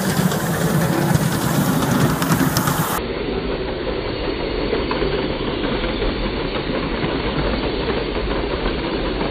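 Miniature 5-inch gauge live-steam locomotive, a replica of the 3801, running with riders aboard: steam hiss and wheels clattering on the rails. About three seconds in the sound turns duller and deeper, a steady rumble as the loco passes.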